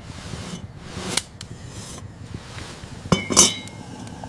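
Dishware clinking: a light knock about a second in, then a louder clink with a short ring a little after three seconds in.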